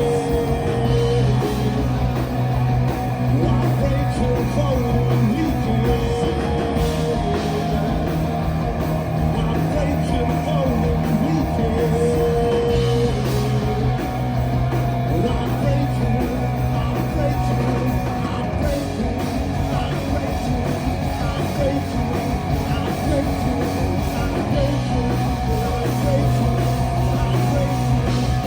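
Live rock band playing a loud instrumental passage: guitars, bass and drums, with long held bass notes shifting every few seconds.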